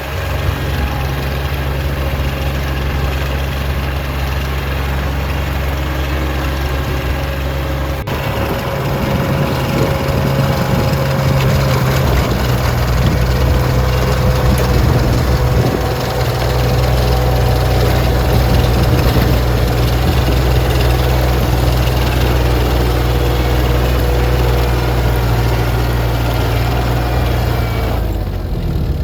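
Farm tractor engine running steadily while tilling a field. It gets louder about eight seconds in and again at about sixteen seconds, then changes abruptly just before the end.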